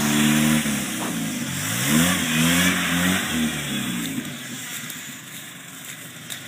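Jeep Wrangler YJ engine revving hard as its tyres churn through deep swamp mud and water. The revs rise and fall several times through the middle, over a rushing hiss of spinning tyres and spray, then drop back and quieten near the end.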